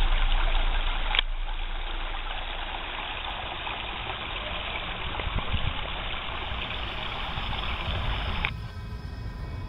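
Small mountain stream trickling over rocks and spilling into a rock pool, a steady rushing hiss. There is a brief click about a second in, and the sound turns quieter near the end.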